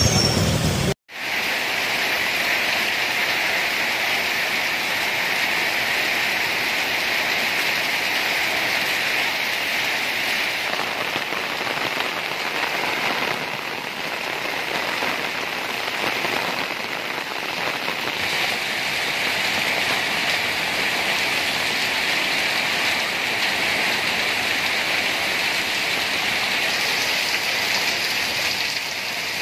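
Very heavy rain pouring down and splashing on a street, steady throughout. The sound cuts out completely for a moment about a second in.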